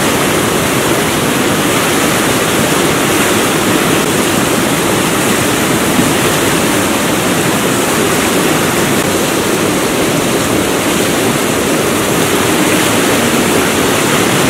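White-water river rapids rushing over rocks: a loud, steady, unbroken rush of water.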